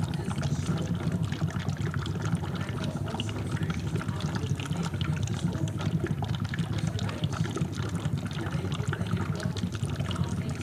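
HHO electrolysis cell running at full power, gas bubbling steadily through the water and electrolyte in a dense fizzing churn, with a steady low hum underneath.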